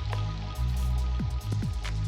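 Electronic background music: held tones over a heavy bass, with repeated quick downward-swooping bass notes and a few sharp clicks.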